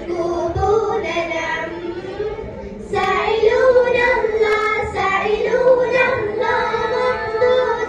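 A group of girls singing an Arabic song together into microphones; the singing gets louder about three seconds in.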